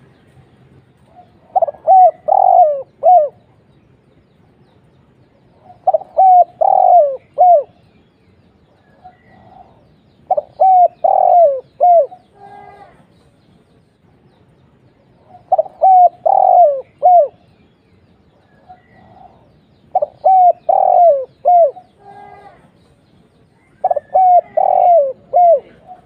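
Spotted dove cooing: six phrases of several short coo notes each, repeated about every four to five seconds.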